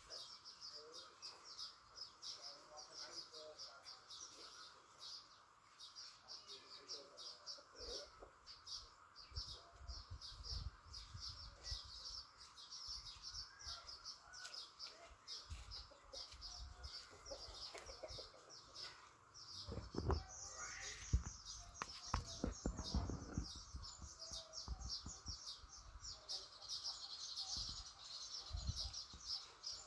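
Chickens clucking among dense, rapid high-pitched chirping of birds. Low thumps and rumbles come in about a quarter of the way through and are heaviest about two-thirds through.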